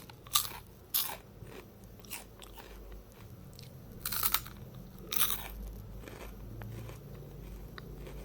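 Crunchy snack being bitten and chewed close to the microphone: sharp crunches about half a second in, at one second and around four and five seconds in, with softer crackling chews between.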